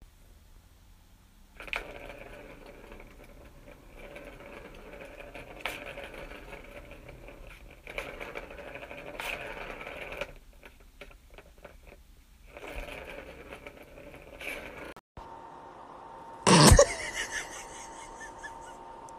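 A ball rolling and rattling round a plastic circular track cat toy as a cat bats at it, in runs with sharp knocks where the paw strikes. It stops at about 10 s and runs again briefly near 13 s. After that comes a steady thin tone and a short, very loud sound about three-quarters of the way through.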